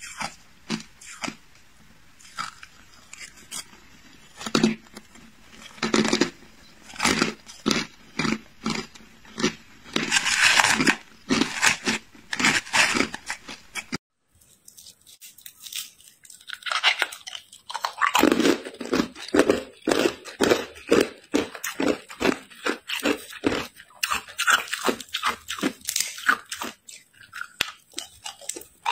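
Hard ice crunching as it is bitten and chewed close to the microphone: separate crunches at first, then a quick run of about three a second after a short break halfway through.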